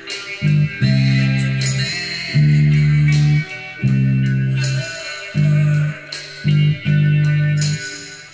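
Electric bass guitar played fingerstyle: a line of held low notes with short gaps between them, over a backing track with other instruments.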